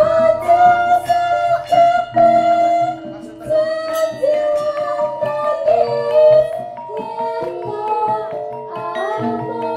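Javanese gamelan (karawitan) ensemble playing, with bronze metallophones struck in steady ringing notes beneath a female solo singer's wavering, ornamented vocal line.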